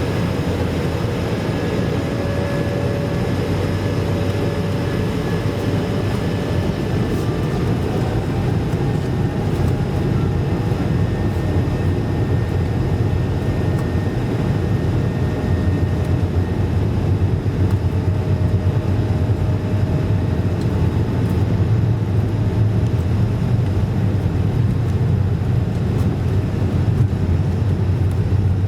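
Airbus A220-300 cabin noise from its Pratt & Whitney PW1500G geared turbofans: a steady rumble with faint, wavering whale-like tones in the first half. The low rumble grows louder in the second half.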